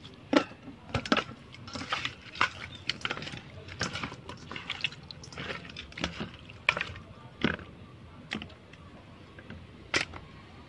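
Hands kneading and rubbing pieces of raw pig-head skin in a stainless steel bowl: irregular wet squelches and slaps of meat against meat and metal.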